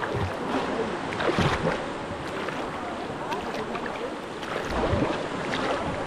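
River water rushing and splashing around inner tubes, with stronger splashes about a second and a half in and again near five seconds.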